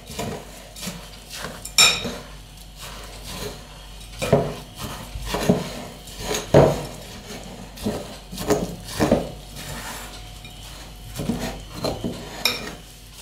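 Hands kneading and squeezing wet rolled-oat and egg dough in a glass bowl: irregular squishing and scraping, with short knocks of hands and dough against the glass.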